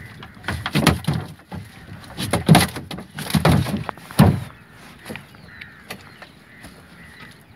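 A large net-caught fish and the net bumping against an outrigger canoe's hull as the fish is hauled over the crossbeam into the boat: irregular clusters of thuds and knocks, loudest about two and a half seconds in. After about four and a half seconds only a few light knocks remain.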